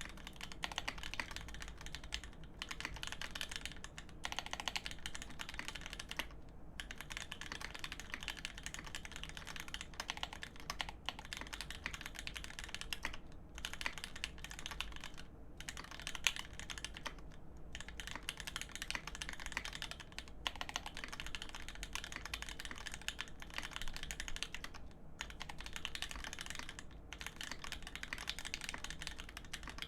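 Continuous fast typing on a GEON F1-8X custom mechanical keyboard with lubed Telios v2 switches on 75 g springs, an aluminium plate and G80-2551 keycaps: a dense run of even keystroke clacks with short pauses every few seconds and a few deeper-sounding presses.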